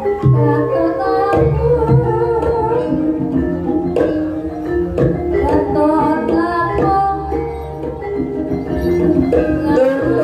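Live Javanese gamelan playing a Banyumasan gending: gong-chime and metallophone tones with hand-drum strokes, and a voice singing a wavering melody over it.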